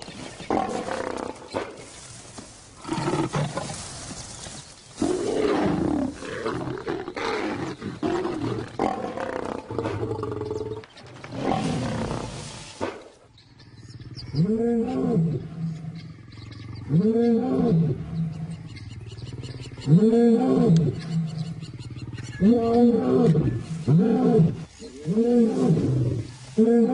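Lions snarling and growling in a fight. About halfway through, a male lion roars: a series of short grunting calls, each rising and falling in pitch, coming faster toward the end.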